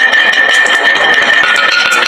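Many marbles clattering and rolling down a wooden marble run: a dense, continuous rattle of small clicks over a steady ringing tone that drops slightly in pitch near the end.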